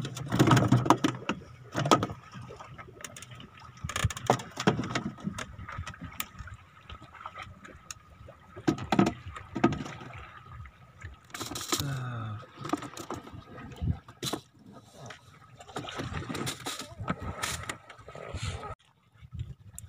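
Irregular knocks, bumps and rubbing as a fisherman handles his handline and gear against the hull of a small boat, over a faint steady thin tone.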